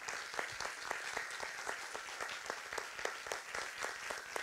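Audience applauding, a dense and steady clatter of many hands clapping.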